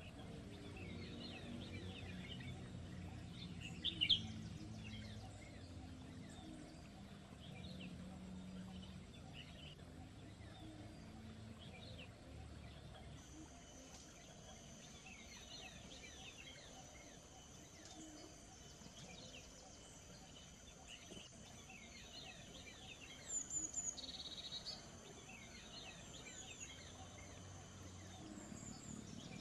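Wild songbirds chirping, many short calls overlapping, one louder call about four seconds in, with a steady high tone joining about halfway.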